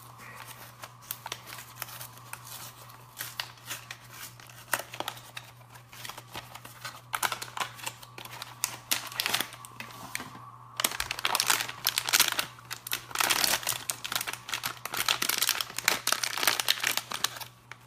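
Blind-box mini figure packaging being opened by hand: the wrapper crinkles and tears in many small crackles, sparse at first and busiest and loudest in the second half.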